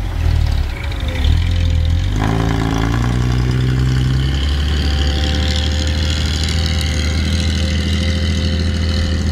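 Excavator's Isuzu 6BG six-cylinder diesel engine running steadily under working load while the boom swings and the bucket digs into soil, its note filling out about two seconds in, with a steady whine over it.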